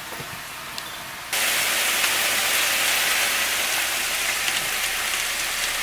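Chicken frying in a pan on a gas stove, a loud steady sizzle, as a packet of seasoning sauce is poured in. The sizzle starts suddenly about a second in, after faint room sound.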